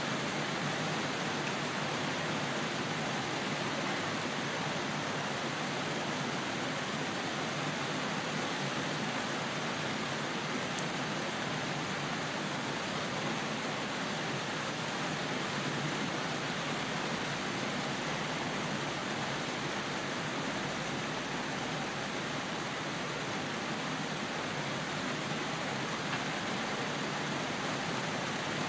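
Steady rain falling, an even hiss with no thunder or other sudden sounds.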